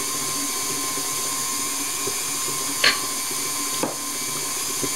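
Electric mixer running steadily with a high motor whine, beating a creamed butter, sugar and golden syrup mixture. A short sharp knock about three seconds in.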